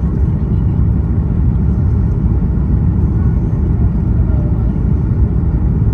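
Steady low rumble of a Boeing 737 MAX 8 heard from inside the cabin: engine and air noise with no distinct events.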